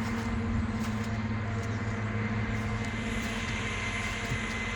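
Steady mechanical drone of running farm machinery, a low hum with several fixed tones held level throughout.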